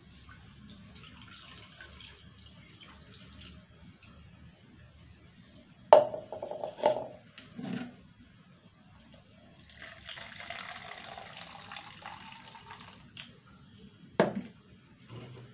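Water trickling from a plastic measuring jug into a slow cooker packed with hide scraps. About six seconds in, hard plastic knocks and clatter as jugs are set down on the wooden table. From about ten seconds, water is poured from a plastic pitcher into the measuring jug for about three seconds, followed by a sharp knock near the end.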